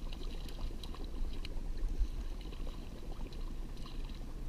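Hooked fish thrashing and splashing at the lake surface: a run of small, irregular splashes and water crackles over a low, steady rumble.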